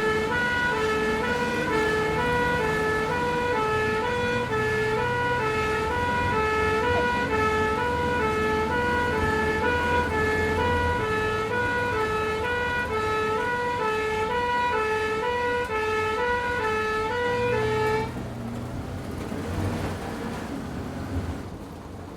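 Ambulance two-tone hi-lo siren alternating steadily between two notes, over the vehicle's running engine. The siren cuts off suddenly near the end, leaving the engine running.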